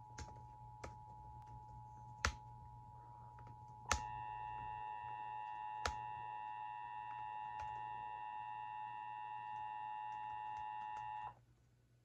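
Emergency Alert System two-tone attention signal (853 and 960 Hz together) from a broadcast receiver, announcing an Amber Alert. It runs steadily, turns louder and harsher about four seconds in, and cuts off sharply about a second before the end. A few sharp clicks sound over a low hum.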